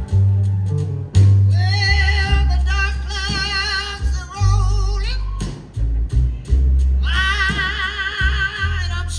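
Live blues band playing, with a lead guitar line of long, wavering notes over a heavy bass line.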